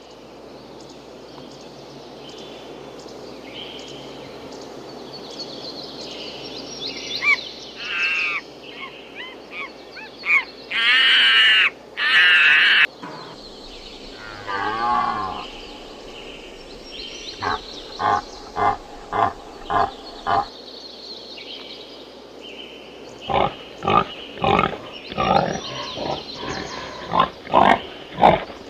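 Several loud, wavering animal cries over a steady background noise, then gangsa, flat bronze gongs, struck in a steady rhythm from about the middle on, the beats growing denser near the end.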